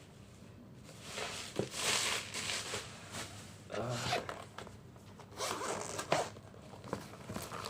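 Packaging being pulled open by hand: three main bursts of scraping noise, about a second in, near the middle and past the middle, with a few sharp clicks among them.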